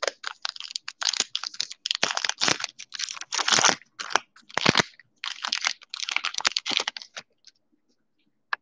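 Foil Topps Stadium Club Chrome baseball card pack being torn open and crinkled by hand, in crackling, rustling bursts for about seven seconds. A single sharp click comes near the end.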